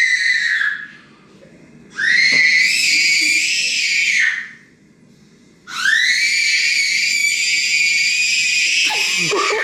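Three long, high-pitched screams, each sliding up at the start and dropping away at the end, with short quiet gaps between them.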